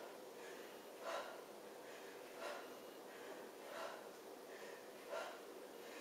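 A person's faint, sharp breaths out, one about every second and a half, exhaling with the effort of each crunch.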